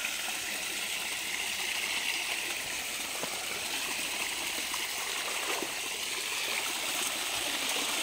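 Small rocky stream pouring down a short cascade over boulders: a steady rush and trickle of running water.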